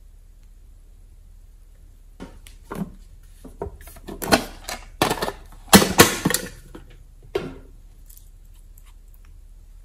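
Small objects being handled on a tabletop: a metal tin box and a glass nail polish bottle picked up and set down. They make a run of clicks and knocks for about five seconds, loudest in the middle.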